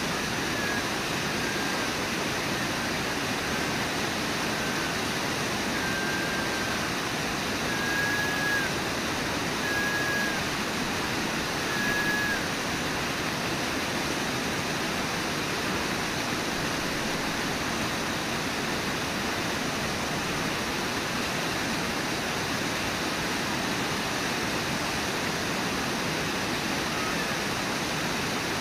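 Brooks Falls: the steady rush of water pouring over the falls. A string of short high notes sounds over it during roughly the first twelve seconds.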